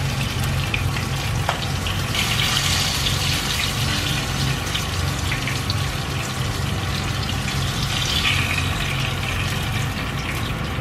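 Oil sizzling in a frying pan with pieces of tuna head in it, the hiss swelling a couple of seconds in and again near the end, over a steady low hum.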